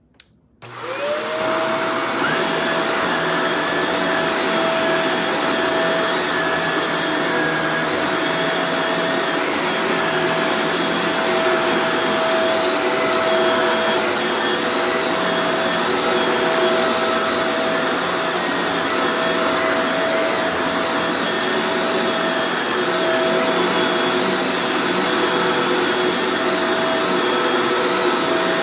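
Upright vacuum cleaner switched on with a click, its motor spinning up to a steady whine within about a second, then running steadily with the whine over a rush of air.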